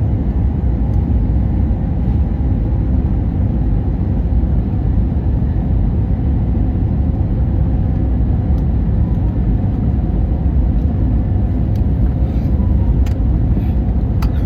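Airbus A320 cabin noise: a steady, loud low rumble with faint steady tones over it, and a few faint clicks near the end.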